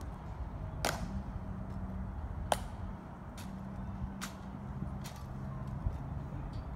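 A few sharp clicks, irregularly spaced about one to two seconds apart, from the Tomb guards' heel-plated shoes striking the stone plaza as they march, over a low steady outdoor hum.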